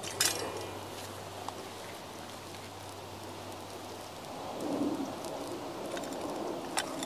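Wooden cuckoo clock burning with a steady crackle and hiss. There is a sharp crack just after the start and another near the end as a work boot comes down on the burning clock.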